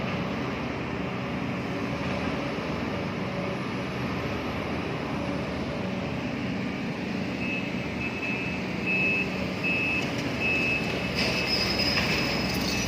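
Excavator's diesel engine running steadily. About halfway through, a travel warning alarm starts beeping, a little over one beep a second, and near the end a few metal clanks join in.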